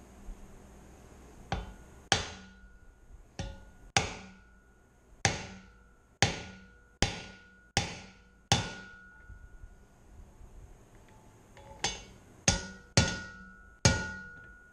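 Hammer blows on a race driver, driving the outer pinion bearing race into a Dana 30 front axle housing. About a dozen sharp metal strikes come in two runs with a pause of a few seconds between, and several leave a short ring.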